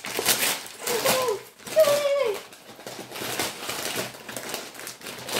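Red gift-wrapping paper rustling and crinkling in short, irregular bursts as a present is torn open by hand.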